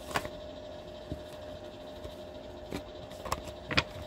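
A few short taps and clicks of tarot cards being handled on a table, over a steady hum.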